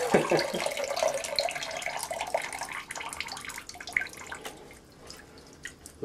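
Water sloshing and gurgling as a hair dryer is lifted out of a filled sink, then running off it back into the basin and dying away to scattered drips.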